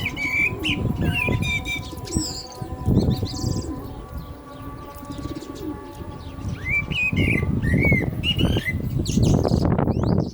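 Common blackbird singing: fluty warbled phrases with a high squeaky twitter, in two bursts, one in the first two seconds and another from about six to nine seconds in. Underneath runs a low, uneven rumble.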